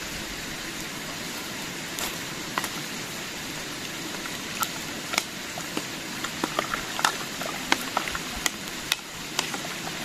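Pot of fish broth bubbling over a campfire: a steady hiss with sharp pops that grow more frequent about halfway in.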